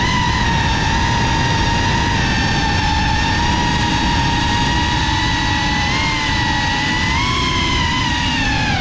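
FPV quadcopter motors and propellers whining at a steady high pitch that wavers slightly with the throttle and drops near the end, over a low rushing noise.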